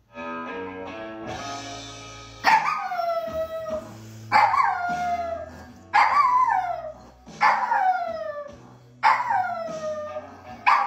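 Dachshund howling along to music: six loud howls, each starting high and sliding down, about one every second and a half, beginning a couple of seconds after the music starts.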